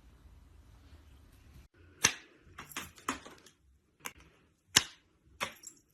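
A series of sharp taps or knocks at uneven intervals, starting about two seconds in, after a quiet start.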